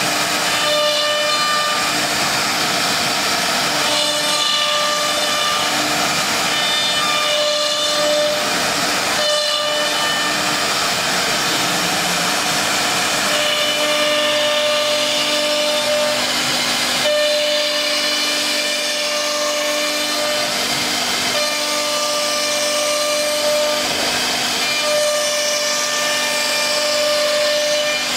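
STM1325-3T three-spindle CNC router cutting a wood door panel: a steady high spindle whine over a constant hiss of cutting and dust extraction. The whine breaks off and comes back every few seconds.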